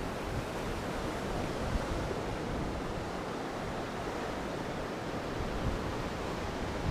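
Steady wind and sea noise: waves washing, with wind blowing on the microphone.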